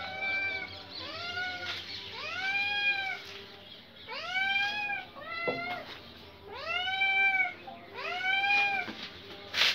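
Domestic cat yowling repeatedly at a freshly killed pigeon: a string of drawn-out calls that rise and fall in pitch, about one a second. There is a sharp click about halfway through and a short loud burst of noise near the end.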